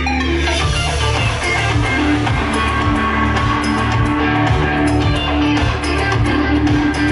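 Didgeridoo droning low with a pulsing rhythm, while an electric guitar plays a melody over it.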